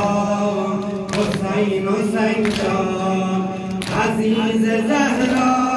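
Male voices chanting a Shia mourning lament (noha) in long held notes, with sharp slaps of chest-beating (matam) landing about every one to one and a half seconds.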